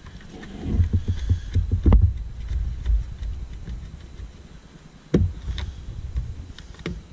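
Hands working in a truck's under-hood fuse box: a low, uneven rumble of handling noise with a few sharp plastic clicks and knocks, the loudest about two seconds in, another just after five seconds and one near the end as the fuse box's plastic cover is handled.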